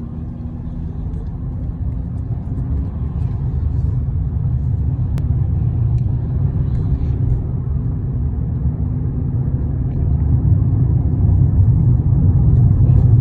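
Steady low rumble of a road vehicle in motion, growing gradually louder.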